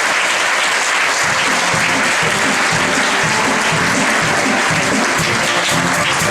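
Theatre audience applauding at the end of a scene, while the pit band's music starts under it about a second and a half in with a steady low bass line.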